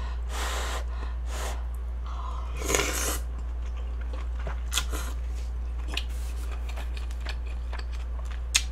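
A person eating beef bulgogi with glass noodles close to the microphone: a slurp about three seconds in, then chewing with sharp mouth clicks, over a steady low hum.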